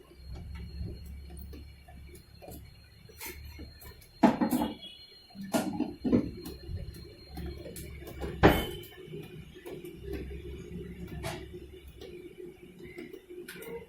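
LG Fuzzy Logic top-load washing machine running in its wash cycle with a low rumble and irregular loud knocks, the 'khad-khad' clatter that the technician puts down to a faulty gearbox.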